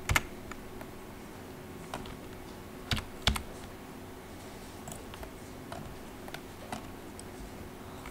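Computer keyboard keystrokes and mouse clicks: a few sharp clicks in the first half, the loudest a pair about three seconds in, then lighter scattered ticks, over a steady low hum.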